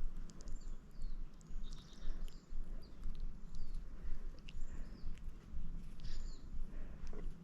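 Small birds chirping over and over, short high notes several times a second, over a constant uneven low rumble.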